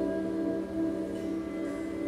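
Sitar ringing on a sustained drone, its notes held with long shimmering overtones that slowly fade.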